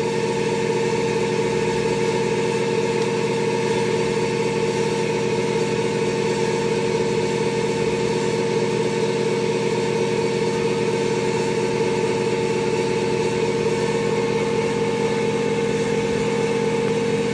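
A motor or engine running steadily at constant speed: an unchanging droning hum with a strong mid-pitched tone.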